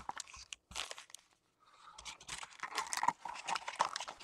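Trading card pack wrapper being torn open and crinkled by hand, in short crackly bursts with a brief pause about a second in.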